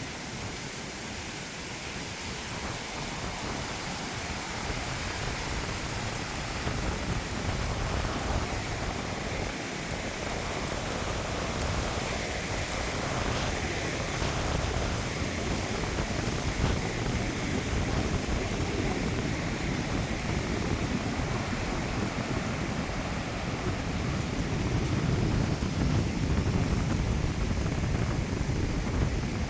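Ocean surf washing steadily onto a beach, with gusts of wind on the microphone.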